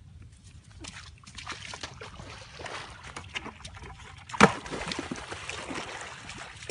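Water splashing and sloshing as feet wade through a shallow muddy pond, with one loud splash about four and a half seconds in as a thrown bucket hits the water.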